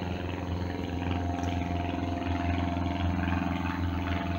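Diesel locomotive engine running with a steady low drone.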